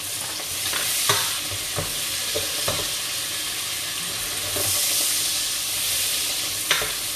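Tempeh, carrots and long beans sizzling in hot oil in a pan, stirred with a utensil that knocks and scrapes against the pan several times.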